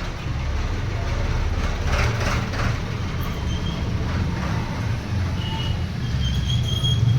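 A steady low rumble like a running vehicle engine, with a few faint high chirping tones near the end.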